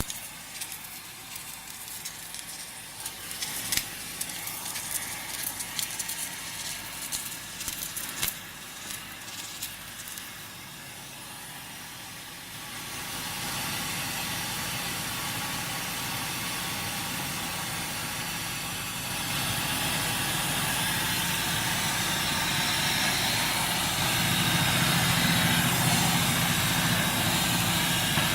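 Electric arc welding crackling and spitting irregularly for about the first ten seconds. After that a steady hissing, rumbling noise takes over and gets louder in steps, around thirteen, nineteen and twenty-four seconds in.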